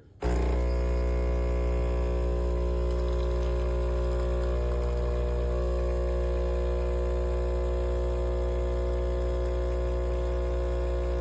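Espresso machine's pump buzzing steadily as it pushes water through, with a deep hum and a stack of steady overtones; it switches on abruptly just after the start.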